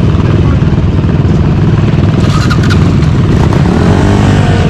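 A pack of dirt bikes and sport ATVs running together in a loud, continuous engine din. About three and a half seconds in, one engine revs up and back down.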